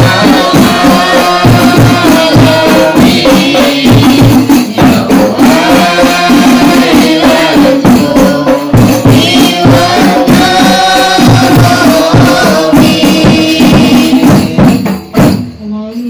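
A group of women singing a sholawat together to the beat of hadroh frame drums (rebana). The music stops about a second before the end.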